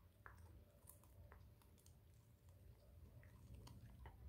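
A chow chow gnawing a piece of raw carrot held between its paws, heard as faint, irregular crunching clicks.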